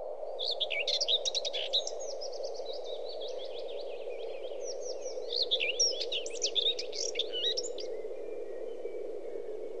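Many small birds chirping and twittering in quick, high calls that stop a couple of seconds before the end, over a steady low background hum.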